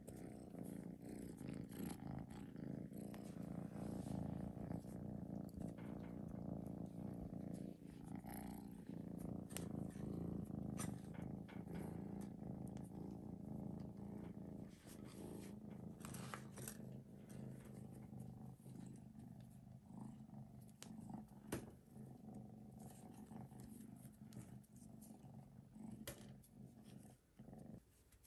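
Young grey kitten purring steadily, a continuous low rhythmic rumble that stops about a second before the end.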